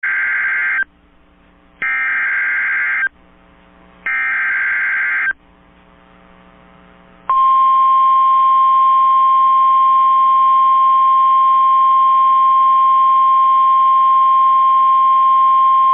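Emergency Alert System signal: three short bursts of SAME header data tones, each about a second long with a pause between, then the steady single-pitch National Weather Service attention tone held for about nine seconds. It announces the severe thunderstorm warning that follows.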